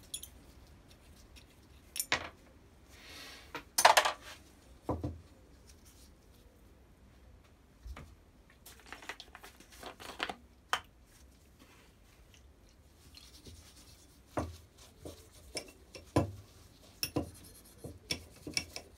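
Metal parts of a Stanley No. 8 plane's frog clinking and knocking as they are handled and set down on a bench, with short rubbing and handling noises. The sounds come in short clusters with quiet gaps between.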